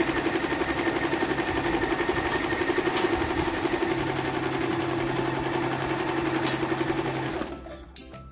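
Electric household sewing machine running steadily at speed, stitching a seam through the fabric with a fast, even needle rhythm. It stops near the end, followed by a click.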